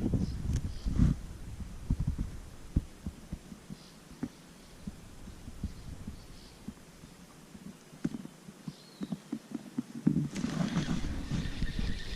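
Irregular low thumps and knocks from handling on a fishing kayak, with a louder rush of noise near the end.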